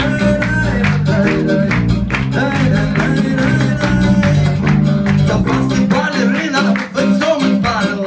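Live band music: an acoustic guitar and an electric bass guitar playing a steady rhythmic song, with a man's voice singing a melody over them.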